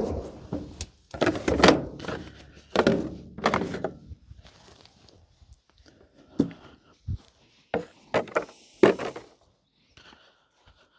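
A series of hollow knocks and clunks from an IBC tote's steel cage and its plastic corner protectors being worked loose and handled, with a cluster of loud knocks in the first few seconds and several more sharp knocks later on.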